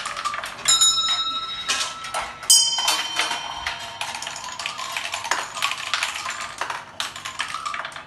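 Marbles rattling and clattering through a homemade marble-run doorbell of copper pipe, wood and metal fittings. Twice, about a second in and again about two and a half seconds in, a bell is struck and rings on. The clatter stops near the end.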